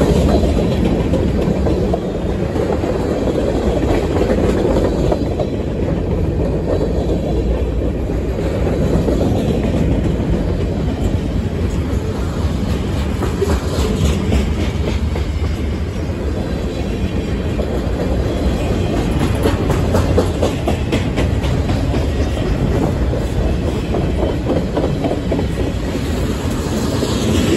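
Freight train of covered hoppers and tank cars rolling past close by: a steady, loud rumble of steel wheels on rail, with scattered clicks from the wheels.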